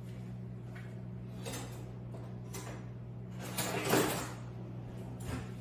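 Kitchen cabinetry being opened and shut away from the microphone: a short sliding rush about four seconds in, with fainter knocks before it, over a steady low hum.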